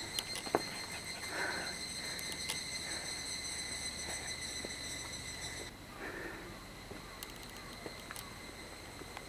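Footsteps on a dirt forest trail, scattered soft thuds and light clicks, over a steady high-pitched whine whose upper part cuts out suddenly a little past halfway.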